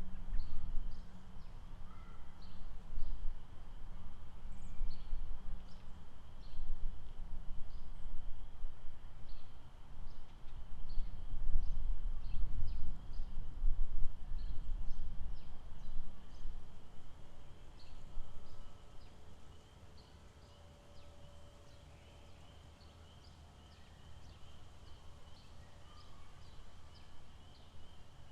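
Outdoor lakeside ambience: a heavy low rumble, loud and uneven for the first two-thirds and then dropping away, under a steady high drone and a string of short high chirps repeating about once or twice a second.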